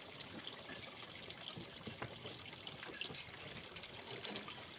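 Water trickling and splashing steadily, with many small drips and splashes.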